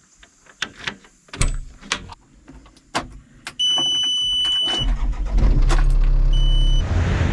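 Volvo EC35C mini excavator being started: a few clicks and knocks, then a high electronic warning beep as the diesel engine cranks and starts running. A second short beep sounds near the end.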